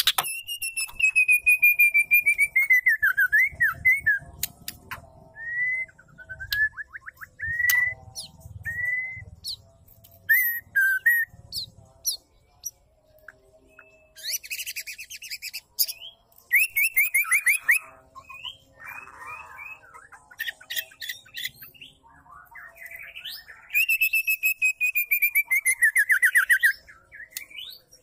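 Female white-rumped shama calling: drawn-out gliding whistles and short chirped notes, broken by several rapid, buzzy rattling runs.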